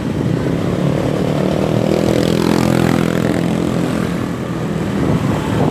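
Motorbike engine running while riding, its note shifting a little in the middle, over road and wind rumble.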